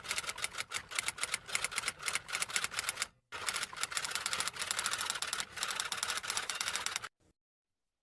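Rapid typing on keys, a fast run of clicks used as a typing sound effect; it breaks off briefly about three seconds in, resumes, and stops about seven seconds in.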